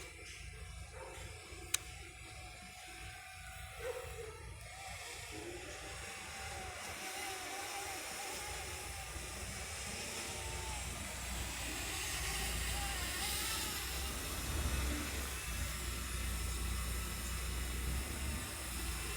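Strong wind blowing over the microphone: a steady hiss that builds up gradually, with heavy low rumbling buffets in the second half.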